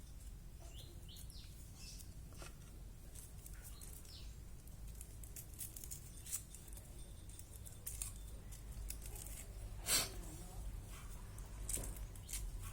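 Irregular small clicks and taps of shallots being handled and cut, the sharpest one about ten seconds in, over a steady low hum. A few short bird chirps sound in the first few seconds.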